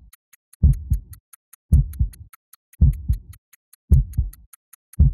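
Heartbeat sound effect: a slow lub-dub double thump about once a second, five times, over a faint, fast, even high ticking.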